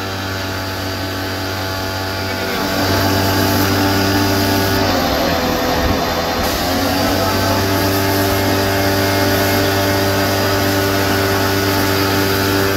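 Drilling rig's engine running steadily at a fixed speed, its pitch wavering and shifting briefly about five to six seconds in before settling again.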